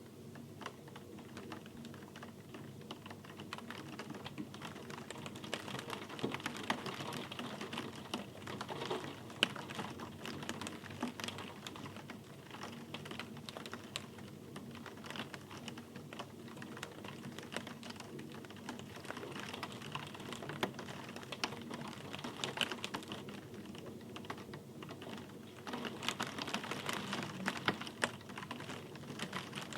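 Rain falling, with many separate drops tapping irregularly.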